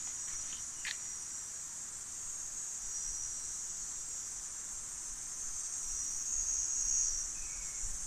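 Steady high-pitched drone of insects in the forest, swelling slightly about six to seven seconds in.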